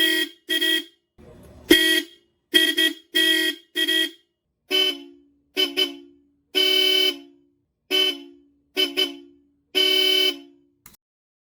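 Bosch Europa-type electric car horns tooting in short blasts, one held a little longer in each half. The first few toots are a single-tone horn, the fake. From about five seconds in, the toots carry two tones together, the original Europa horn.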